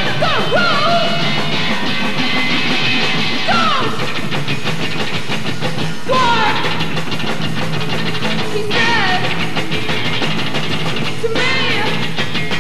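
Live rock band playing loud and continuously: electric guitars and a drum kit, with a high sliding figure that repeats about every two and a half seconds.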